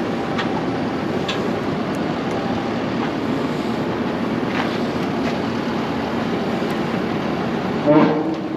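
Farm machinery engine running steadily.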